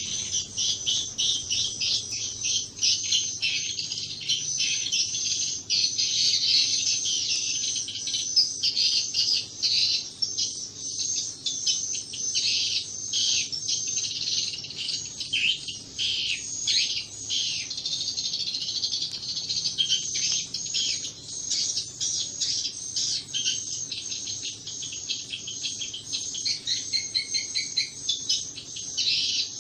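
Swiftlets' rapid, dense twittering chirps, as heard in a swiftlet house, with a faint steady low hum underneath.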